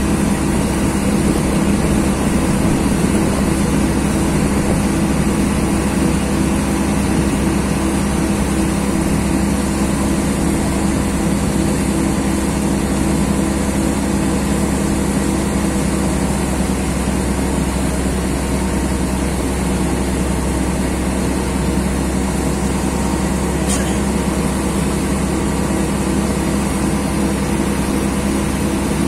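Engine boat's motor running steadily under way, an unchanging drone with a low hum, heard from on board. A single brief click about three-quarters of the way through.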